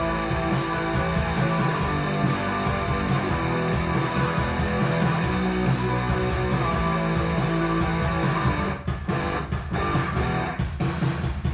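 Guitar-led music played back through hi-fi speakers driven by an amplifier. Near the end the playing turns choppy, with short stabs and brief gaps.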